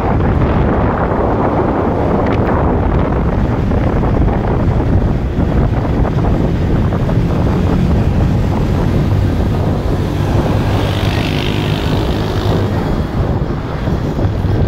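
Steady wind noise buffeting the microphone over the road and engine noise of a moving car.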